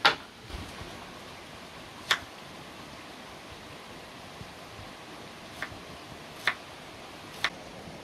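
A wooden cutting board set down on the counter with a sharp knock, then a few separate knife taps on the board as an onion is cut, over a steady faint hiss.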